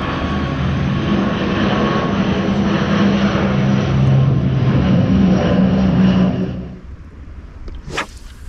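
Twin-engine propeller plane flying overhead: a loud steady drone with a low propeller hum, cutting off abruptly about six and a half seconds in.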